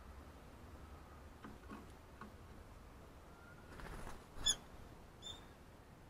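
A wild garden bird giving short, sharp calls: a brief rustle, then one loud high call about four and a half seconds in and a fainter one just under a second later, over a few faint clicks.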